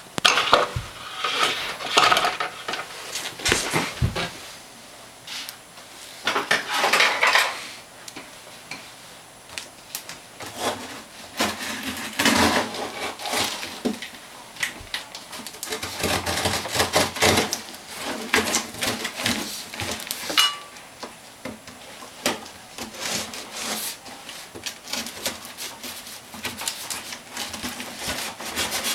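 Unboxing handling noise: packaging rustling and crinkling in repeated swells, with many light clicks and knocks as small wooden fingerboard pieces are handled.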